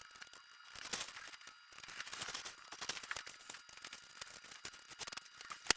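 X-Acto hobby knife slicing through foam core board, an irregular run of small crackling, scratching clicks, with one sharper click near the end.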